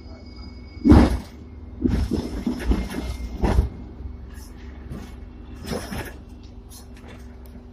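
Hong Kong double-deck electric tram running along street track, heard from the front platform: a steady low rumble and hum, broken by heavy clunks and rattles about one second in, a run of knocks from about two to three and a half seconds, and another near six seconds.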